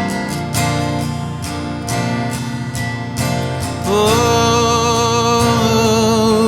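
Acoustic guitar strumming a slow worship song. About four seconds in, a singer comes in on one long held note with vibrato.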